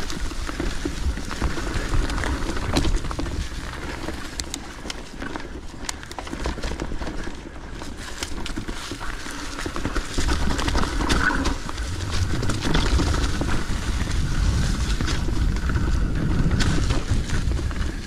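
Mountain bike riding down a rocky singletrack covered in dry leaves: tyres rolling and crunching through the leaves, with frequent knocks and rattles as the wheels hit rocks and roots. A low rumble, likely wind on the microphone, grows louder about ten seconds in.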